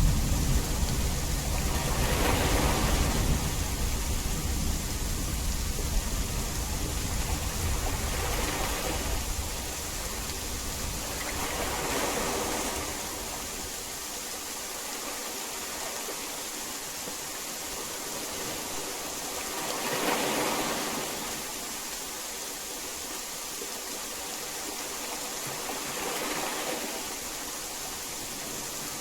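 Heavy rain falling steadily, swelling and easing a few times. A low rumble of distant thunder dies away over the first several seconds.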